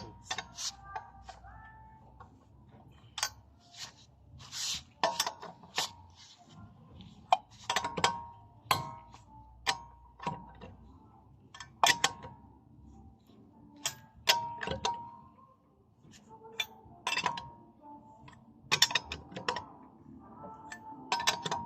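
Wrench and socket on steel wheel nuts as they are torqued down: a string of sharp metallic clicks and clinks at irregular intervals, some with a brief ring.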